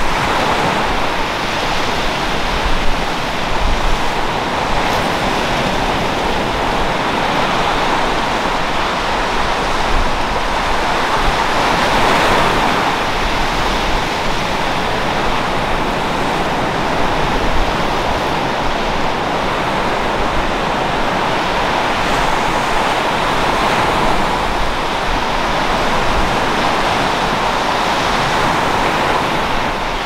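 Small waves breaking and washing up a sandy beach: a continuous hiss of surf that swells and eases every few seconds.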